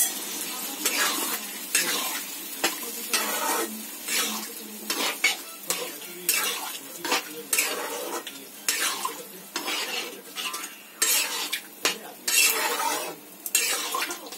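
Steel spatula stirring and scraping chickpeas through a chicken curry in a black kadai, in repeated uneven strokes, with the curry sizzling underneath.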